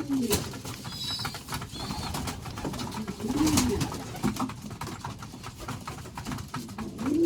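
Domestic pigeons cooing in a loft: three low coos that rise and fall, a few seconds apart, with faint high chirps in the first couple of seconds.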